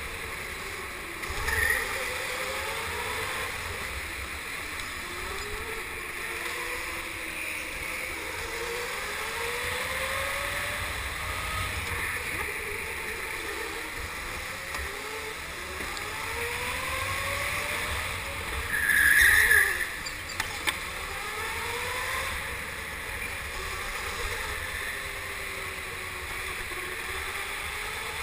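Go-kart heard from the driver's seat, its motor pitch rising and falling again and again as it accelerates and slows through the corners, over a steady rumble and wind noise. A short louder burst stands out about two-thirds of the way in.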